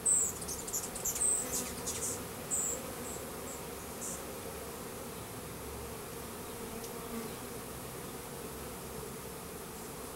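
Russian-Carniolan hybrid honey bees humming steadily around an open hive, with a few short high-pitched squeaks and clicks in the first three seconds.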